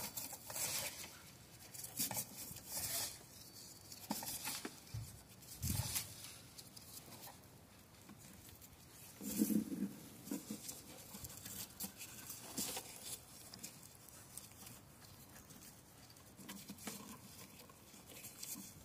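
Gloved hands handling and routing an electrical wiring harness: scattered rustling, scraping and light clicks of wire and plastic, with a dull bump about halfway through.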